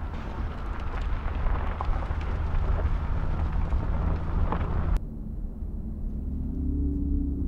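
Tyres of a Mercedes EQS SUV rolling over rocky, gravelly ground: a steady rumble and crunch with a few sharp stone clicks. It cuts off suddenly about five seconds in, leaving a low music bed with soft sustained tones.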